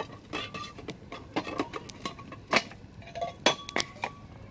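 Campfire crackling: wood burning with irregular sharp pops and snaps, the loudest two about two and a half and three and a half seconds in, a few with a short ringing edge.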